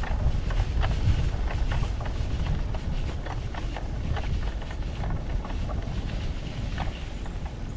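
Wind buffeting the microphone as a steady low rumble, with scattered short clicks and crackles throughout.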